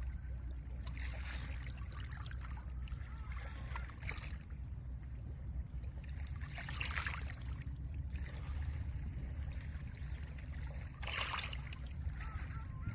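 Small lake waves washing onto a pebble shore, a hissing wash swelling and fading every few seconds, the strongest about seven and eleven seconds in, over a steady low rumble of wind.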